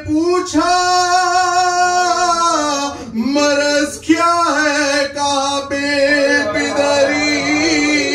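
A man's voice singing a Shia mourning lament in long held notes that waver and turn, with short breaths about three and four seconds in.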